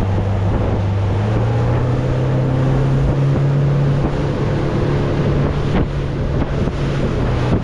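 A boat engine running under way, its pitch stepping up a little about a second in, over a steady rush of wind on the microphone and water.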